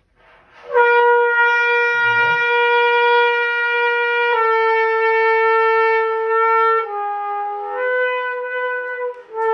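A beginner's trumpet holding a long, steady note from about a second in, dropping slightly in pitch midway, then stepping down to a lower note and back up near the end. It is blown freely with relaxed lips, as the student was just asked to do.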